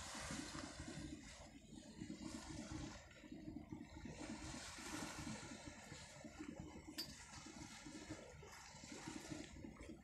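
Faint rushing and washing of sea water around a boat, with irregular low rumbling of wind on the microphone.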